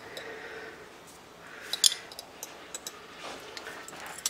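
Dried parsley being added to a glass mixing bowl: faint rustling with a few light clicks.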